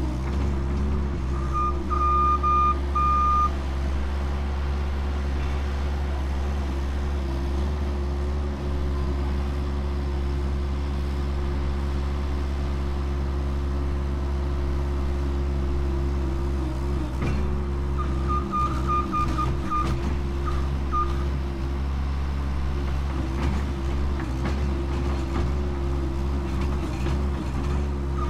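Bobcat skid-steer loader working, its engine running steadily throughout. Its reverse alarm beeps in two short runs, about a second and a half in and again around eighteen seconds in, and there are scattered knocks in the second half.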